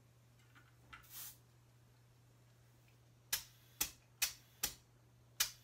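Compressed-air inflator on a bicycle tyre's Schrader valve: a soft hiss about a second in, then five short, sharp puffs of air roughly half a second apart as the tyre is topped up toward 45 psi.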